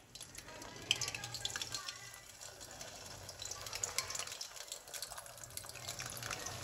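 Pastry-wrapped chicken rolls sizzling and crackling in hot oil as they deep-fry in a wok, with more rolls being added. The crackling thickens about a second in.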